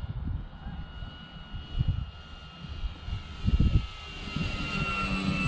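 Electric motor and propeller of a Dynam Cessna 188 RC plane whining steadily in flight, growing louder near the end as the plane comes closer. Gusts of wind buffet the microphone with low rumbles.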